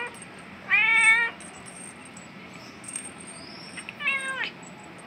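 Cats meowing for food: two meows, the first about a second in and the second near the end, dropping in pitch as it ends.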